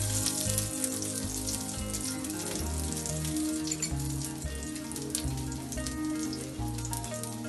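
Potato tikki patties sizzling in hot oil on a flat griddle pan, over background music.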